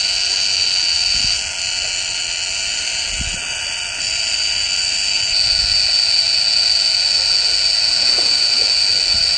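A loud, steady, high-pitched buzzing drone. It drops slightly about a second in and grows louder again about halfway through.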